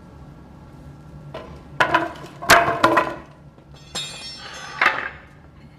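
Several sharp knocks and clanks of hard objects striking, as in foundry work at the casting molds, the loudest about two and a half seconds in, followed by a ringing scrape near the end, over a steady low hum.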